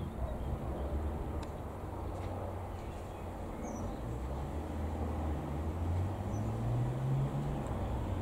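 Single-engine 1946 Aeronca 11AC Chief flying overhead: the low, steady drone of its four-cylinder Continental A-65 engine and propeller, growing louder over the last few seconds as it comes nearer. A few faint bird chirps are heard high above the drone.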